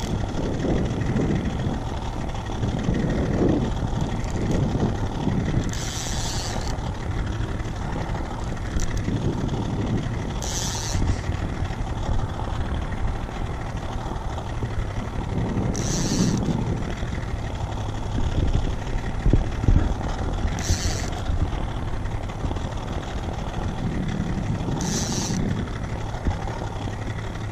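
A boat's outboard motor runs steadily under a low, gusty rumble of wind and choppy water. A fishing reel's clicker buzzes in five short bursts, spaced about every five seconds, as a hooked lake trout is played.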